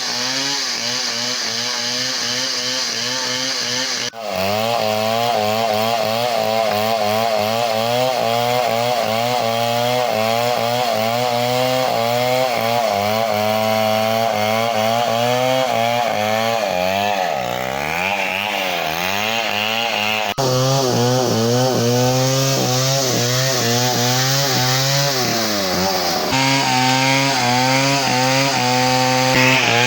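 Two-stroke chainsaw cutting into a big tree, its engine pitch wavering constantly under the load of the cut. Around the middle it bogs down and picks up again, and the sound jumps abruptly twice.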